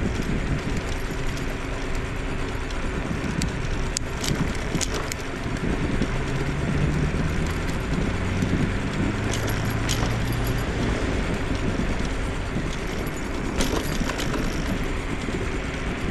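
Riding a scooter along a city street: a steady rumble of wheels on the road and wind. A few sharp rattles come over bumps, and a low hum rises in pitch near the middle.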